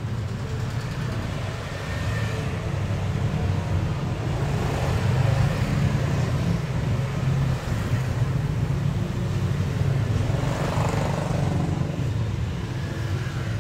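Street traffic: motorcycle and car engines running and passing as a steady low rumble, swelling twice as vehicles go by.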